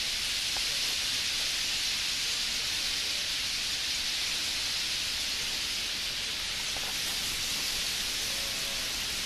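Massed sound of a huge flock of bramblings in flight, thousands of birds blending into a steady, even hiss.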